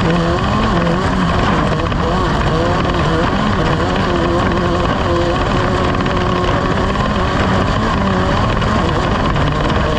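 Loud, steady engine noise whose pitch wanders up and down.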